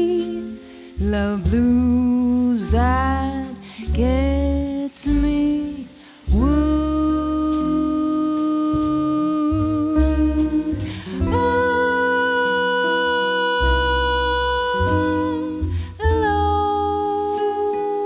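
Jazz ballad played live: a woman's voice sings long, gliding notes over guitar and double bass accompaniment.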